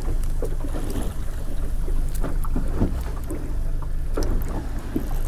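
A boat's outboard motor running steadily, with wind on the microphone. Small scattered clicks and rustles come from hands working a stiff wire down the spinal canal of a salmon.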